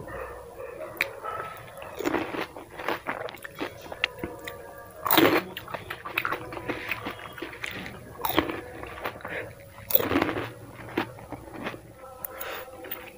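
A person biting into and chewing crisp pani puri (golgappa) shells: a series of sharp crunches with chewing between them, three crunches louder than the rest.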